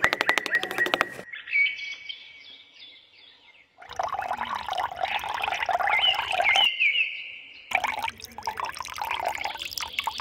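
Birds chirping, with liquid poured from a small plastic cup into a bottle cap in two spells separated by a short pause. A burst of rapid clicking comes in the first second.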